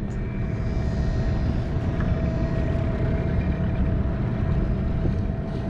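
A small boat's outboard motor running steadily while under way: a low rumble with a thin, steady whine over it.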